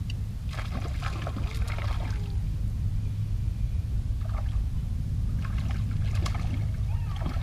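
Steady low rumble, with two spells of light trickling and ticking water sounds: small waves lapping at the canoe and the shore, the first about half a second in, the second near the end.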